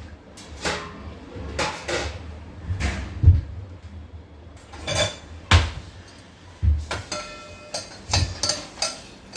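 Kitchen pots and utensils knocking and clinking irregularly while dal is being washed, with a sharp knock about three seconds in and another about five and a half seconds in. A vessel rings briefly about seven seconds in.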